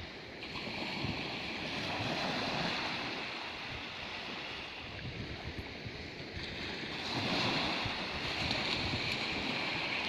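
Sea waves washing on the shore, swelling about two seconds in and again about seven seconds in, with wind buffeting the microphone.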